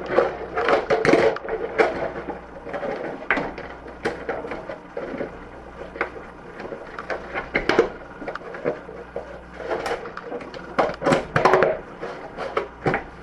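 Painted RC helicopter canopy being pushed and worked onto the helicopter's frame by hand: irregular clicks, knocks and rubbing, busiest near the start and again between about ten and twelve seconds in.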